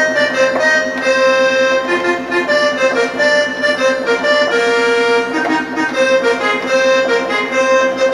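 Roland D-50 synthesizer playing an accordion-like patch edited for cumbia: a melody of held notes over a steady repeated low note.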